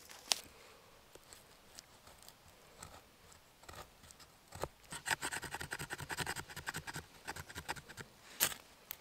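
Knife blade shaving thin curls off a split stick to make a feather stick: scattered scrapes and clicks, then a quick run of scraping strokes about five seconds in, with a sharp click near the end.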